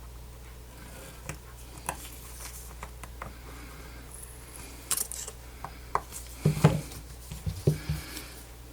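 Scattered light clicks and taps of small tools and adhesive-tape pieces being handled during a tablet screen repair, with a cluster of louder knocks in the last couple of seconds, over a low steady hum.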